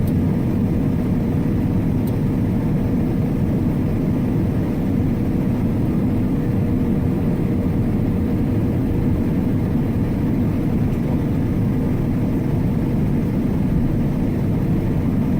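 Heavy farm harvest machinery running steadily under load, a continuous low engine drone with a faint steady whine above it.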